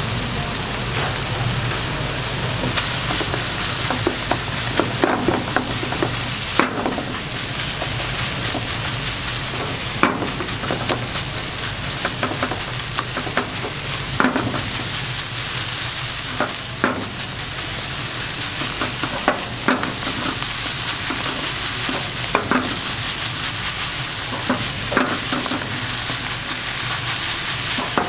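Fried rice sizzling steadily in a nonstick frying pan over a gas flame as it is stir-fried with a spatula, with irregular sharp knocks and scrapes of the spatula against the pan every second or few.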